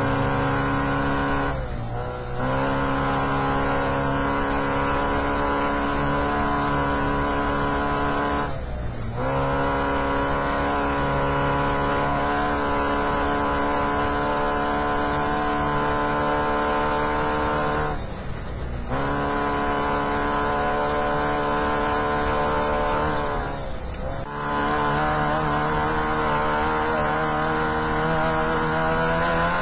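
Trophy Lite off-road race truck's engine running hard at steady high revs, heard from inside the cab over a constant haze of road and wind noise. The engine note drops out briefly four times, each time coming back at a new pitch.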